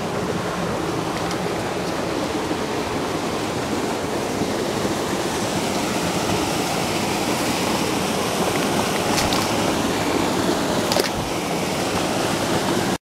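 Water rushing steadily over a spillway, an even hiss of running water with a couple of faint clicks near the end; it cuts off abruptly at the very end.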